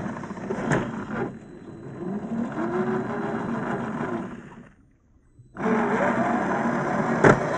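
MST CFX RC crawler's brushed electric motor (RC4WD 20T) and geared drivetrain whining, the pitch rising and falling with the throttle. The sound drops out for about a second around five seconds in, then returns. A sharp knock comes near the start and another near the end.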